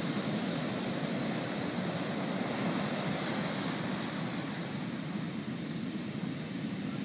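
Heavy ocean surf breaking: a steady rushing noise of waves and whitewater, easing slightly in the second half.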